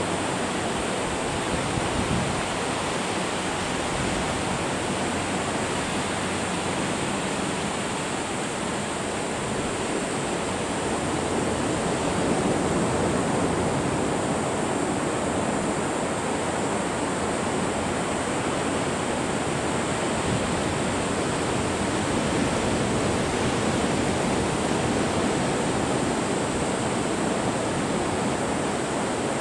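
Steady, continuous wash of ocean surf breaking on the beach, growing slightly louder a little before halfway through.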